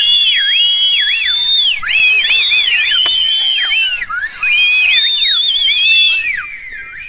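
A crowd of people whistling at once, many shrill whistles overlapping, some swooping up and down and some held. The whistling thins and gets quieter near the end.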